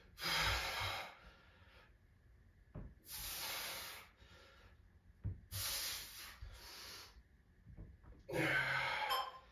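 A man's heavy breathing during a floor core exercise: four long, noisy exhalations about two and a half seconds apart.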